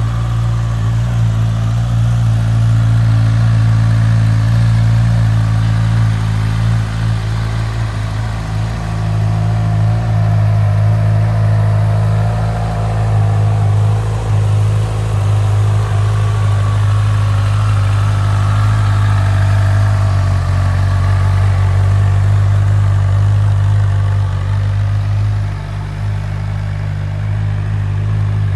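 Honda CB1000R's 998 cc inline-four engine idling steadily, with no revving.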